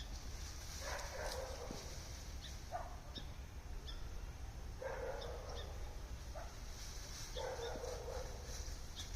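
Animal calls: four harsh calls spaced about two seconds apart, with faint short high chirps scattered between them.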